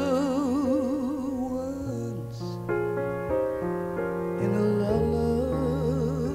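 A song with one voice singing with steady vibrato over sustained keyboard chords and bass notes that change every second or so.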